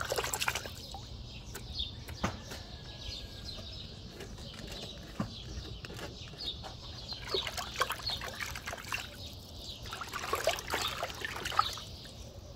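Water splashing and sloshing in a plastic bucket as a hand works in it, in short irregular bursts near the start and again around ten to twelve seconds in.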